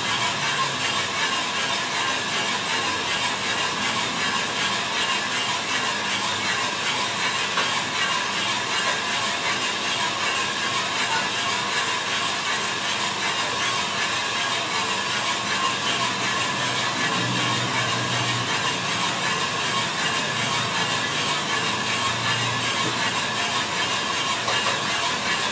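A small drum coffee roaster running steadily mid-roast: coffee beans tumble in the rotating drum over the even noise of its motor and fan.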